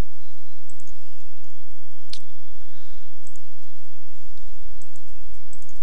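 Computer mouse clicking: one sharp click about two seconds in and a few fainter clicks, over a steady low hum.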